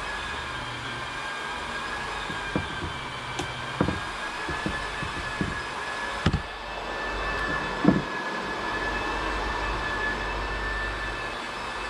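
A steady mechanical whine over a low hum, with a few sharp knocks and thumps scattered through it.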